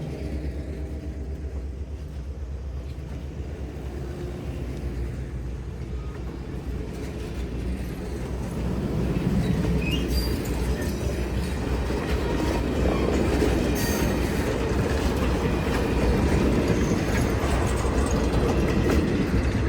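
Train led by locomotive 1751 running past: a steady low engine rumble with the wheels clattering and squealing on the rails, growing louder about eight seconds in as the train comes closer.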